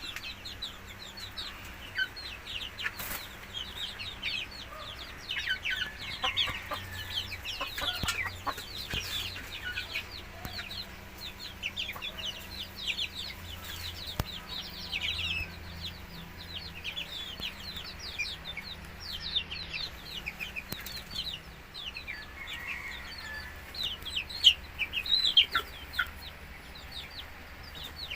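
Chickens clucking and peeping: many short, high calls that fall in pitch, overlapping throughout, with no long crow standing out. A faint steady low hum runs underneath.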